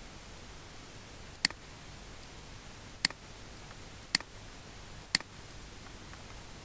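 Computer mouse button clicking: four short, sharp clicks spaced about one to one and a half seconds apart, over a faint steady hiss.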